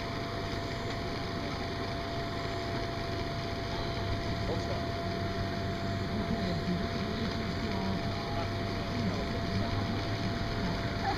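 Steady drone of an inflatable finish arch's blower fan: a low hum with a constant thin whine.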